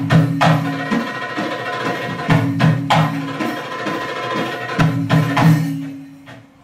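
Live Arabic belly-dance music: sustained keyboard chords over a hand-drum rhythm with sharp drum strikes. The music drops away about six seconds in.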